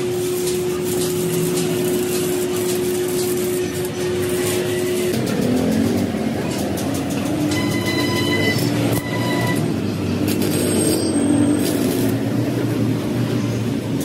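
Stick arc welding on a galvanized steel water-heater tank: a steady buzz and crackle from the welding arc, which gives way about five seconds in to an uneven, wavering hum that carries on.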